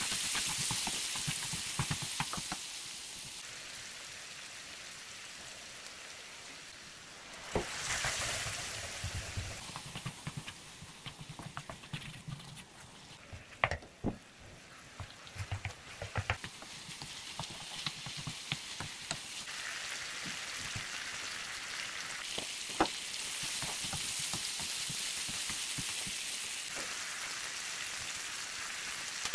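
Chunks of beef sizzling as they fry in a nonstick wok, a steady hiss that swells about a third of the way in and again near the end. A spatula scrapes through the meat and knocks against the pan now and then.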